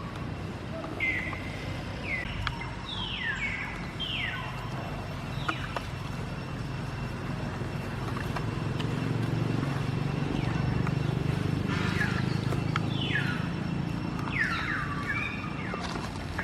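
Baby monkey giving short high squeals, each falling in pitch, several in the first few seconds and a run of them in the last third. A low rumble runs underneath and grows louder in the middle.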